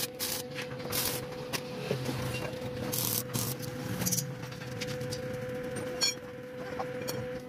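Arc welding on steel rods: a few short bursts of crackling hiss as tack welds are struck, over a steady hum.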